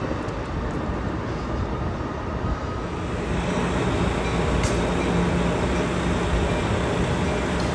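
Amtrak Pacific Surfliner passenger train rolling past at close range: a steady rumble and rush of wheels on rail. A low steady hum joins about three seconds in.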